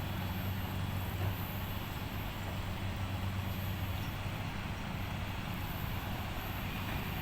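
A vehicle engine running steadily: an even low hum over a constant wash of noise, with no change in pitch.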